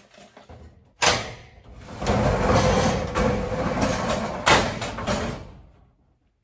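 Metal roll-up door of a self-storage unit being unlatched and rolled up: a clank about a second in, then a long rattling rumble with another loud clank near the end.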